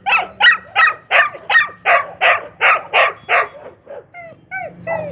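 Dog barking rapidly, about ten loud barks at roughly three a second, then a few shorter, higher yelps near the end.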